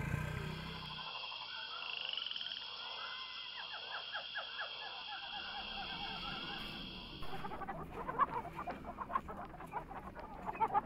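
Outdoor animal sounds: a steady high-pitched drone with a quick run of croaking calls, giving way about seven seconds in to scattered short calls.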